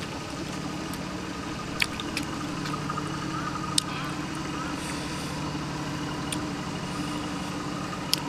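Farm tractor engine running steadily, a low even hum, with a few sharp clicks over it.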